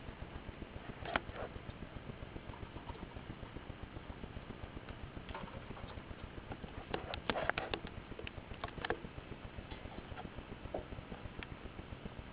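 Storm rain pattering as a constant run of small, quick drop taps, with a few louder taps about a second in and a cluster of them about seven to nine seconds in.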